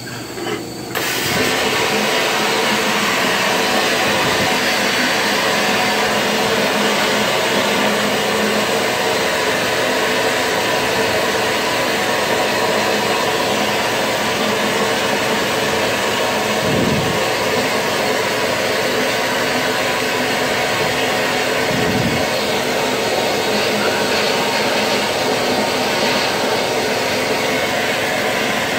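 Vapor honing blast gun spraying a slurry of water and abrasive media on compressed air inside the cabinet: a loud, steady hiss that starts about a second in and holds evenly.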